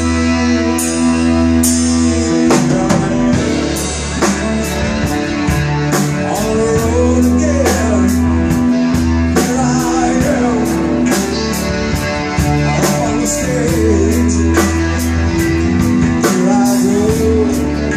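Live rock band playing: electric guitar and keyboards over a drum kit keeping a steady beat. From about seven seconds in, a voice sings a wavering melody over the band.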